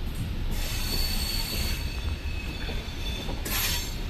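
Passenger train running along the track, heard from inside the carriage at the window: a steady rumble of the wheels on the rails under a hissing rush, which briefly gets louder near the end.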